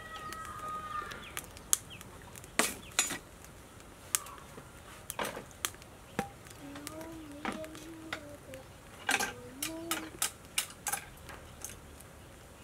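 Scattered sharp clicks and knocks of kitchen utensils, a plastic bottle and a metal wok being handled at an open-fire cooking station, a dozen or so spread out. A low voice murmurs wordlessly about halfway through.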